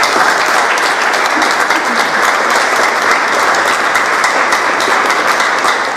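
Audience applauding steadily, a room full of hands clapping together.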